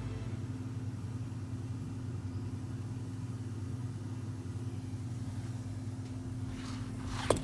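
Steady low mechanical hum, with a single sharp click near the end.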